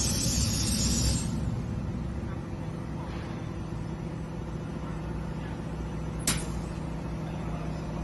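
Laser drilling machine running: a loud hiss stops about a second in, leaving a steady low machine hum, with one sharp click about six seconds in.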